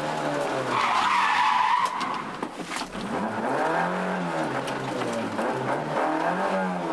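Rally car engine revving hard from inside the cabin, with the tyres squealing for about a second near the start as the car slides into a tight bend. The engine note drops off briefly, then rises and falls again as the car accelerates out through the gears.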